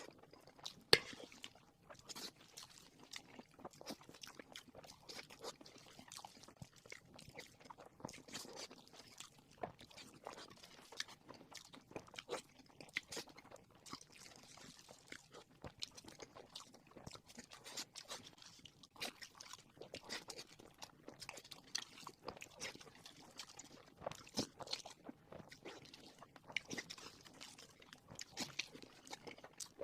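A person chewing and crunching fried pork, a steady run of small irregular crackles and wet chewing sounds, with one sharp louder click about a second in.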